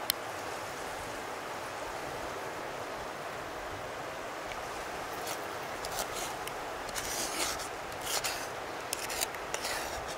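A run of short scraping strokes in the second half, over a steady rushing background noise, with a single click at the very start.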